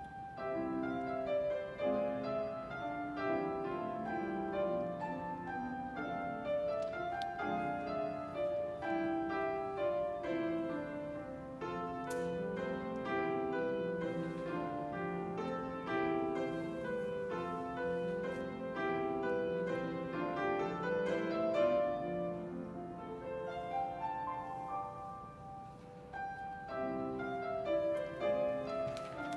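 Grand piano playing the second movement of a miniature concerto, with melody and accompanying notes sounding together. It goes softer for a moment near the end, then comes back up.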